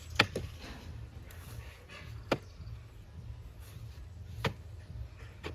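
Four sharp knocks or strikes, roughly two seconds apart, the first the loudest and followed by a smaller one, over a steady low rumble.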